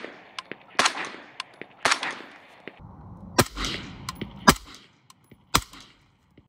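Suppressed 5.56 short-barrelled AR rifle with a SilencerCo Velos 556 suppressor firing single shots about a second apart: two sharp cracks, each with a short echo, then a brief gap and three more. Fainter ticks fall between the shots.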